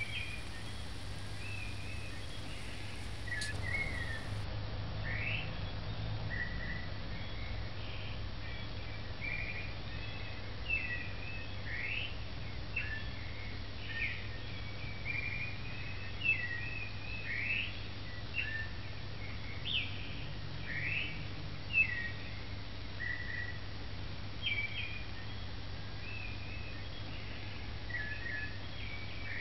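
Birds chirping: short, quick rising and falling chirps every second or so, over a steady low hum.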